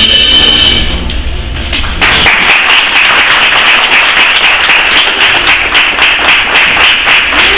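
Music playing over the hall's loudspeakers fades out about a second in. A crowd then breaks into applause, with many hands clapping steadily to the end.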